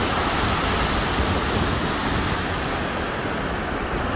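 A loud, steady rushing noise with an uneven low rumble beneath: outdoor wind buffeting the microphone.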